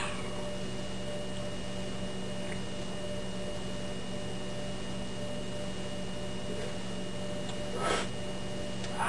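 Steady electrical hum made of a few fixed tones. About eight seconds in, a short breathy exhale follows a drink from the can.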